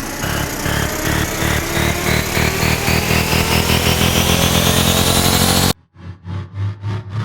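Synthesized cinematic riser sound effect: a pulsing, building sound rising steadily in pitch and getting louder, which cuts off suddenly near the end. A new pulsing effect starts straight after the cut.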